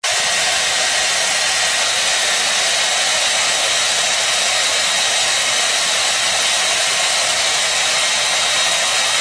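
Handheld hair dryer blowing steadily: a constant rushing hiss with a faint high whine from its motor.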